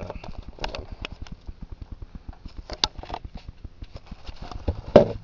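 Handling noise of a ventriloquist figure's head and a handheld camera: scattered knocks and rustles, the loudest knock near the end, over a fast, even low ticking.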